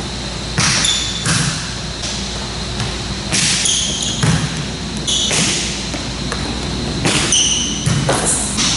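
A volleyball smacking off a player's forearms and thudding on the sport court floor several times, with short sneaker squeaks as she shuffles and dives.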